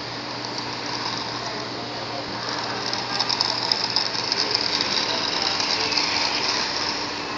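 Small battery-powered RC Thunder Tumbler stunt car driving over pavement: a whirring electric motor with its plastic wheels and body rattling. It gets louder from about three seconds in and eases off near the end.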